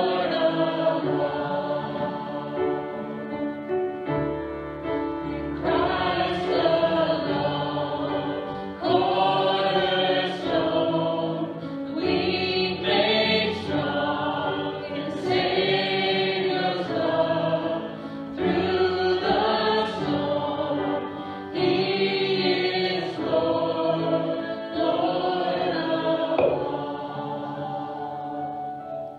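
Voices singing a slow worship song with instrumental accompaniment, in sung phrases of a few seconds each with short breaks between.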